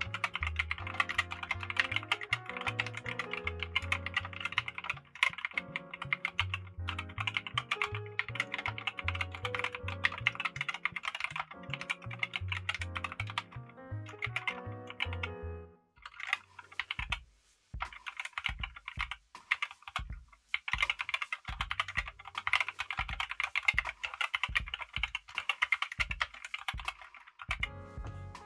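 Fast, continuous typing on a GiM SK64 60% hot-swap mechanical keyboard fitted with Gateron optical switches: a dense run of keystroke clacks. Background music plays underneath, its bass notes stopping about halfway through.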